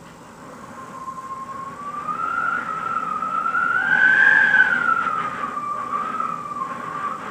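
Wind whistling through a country cottage window: one wavering whistle that grows louder and rises in pitch to a peak about four seconds in, then drops back and wavers at a lower pitch.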